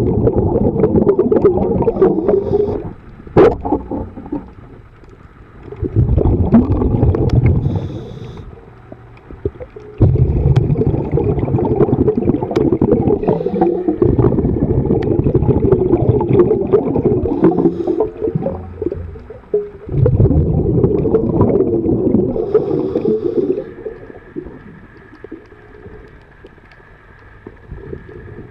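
Scuba diver's exhaled bubbles rumbling past an underwater camera in long bursts of a few seconds, with quieter gaps between breaths.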